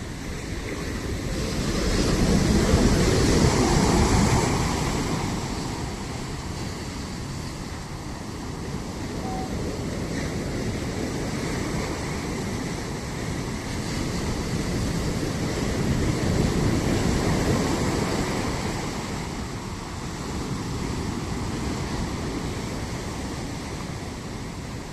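Ocean surf breaking on a beach, a continuous wash that swells and recedes with each wave, the biggest swells about two to five seconds in and again about two-thirds of the way through.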